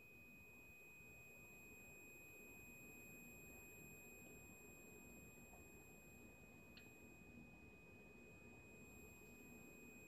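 Near silence: room tone with a faint, steady high-pitched whine and one faint tick about two-thirds of the way through.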